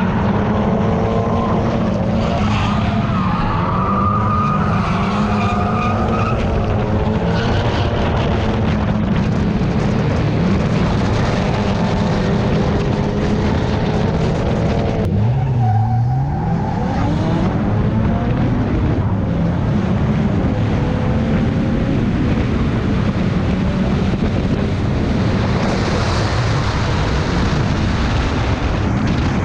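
Drift car engine revving hard, its revs rising and falling continuously, with tyres squealing and skidding as the car slides through the corners. About halfway through, the revs drop sharply and climb straight back.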